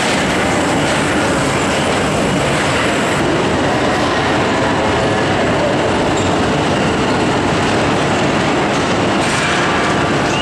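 Crazy Mouse spinning roller coaster cars running along the steel track, against the steady background din of a crowded hall.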